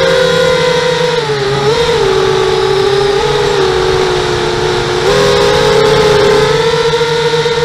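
Motors and propellers of a 5-inch quadcopter whining in flight, several close pitches together that dip and step up a few times as the throttle changes.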